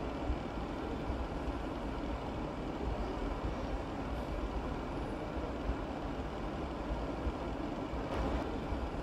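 A steady low rumble fills the background, with a few soft, irregular taps of a chef's knife slicing through a white vegetable onto a plastic cutting board.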